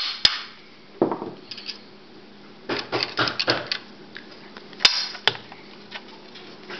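A last tap on the back of a screwdriver, driving the front bearing of a VorTech MP10 powerhead out through a steel framing square. It is followed by a duller knock, then scattered light metal clicks as the screwdriver and square are handled, with two sharper clicks a little after the middle.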